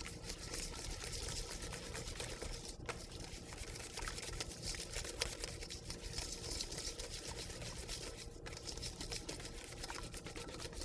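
Wire whisk beating eggs into pumpkin puree in a mixing bowl: a steady, fast ticking of the wires against the bowl with a wet slosh, broken by two very brief pauses.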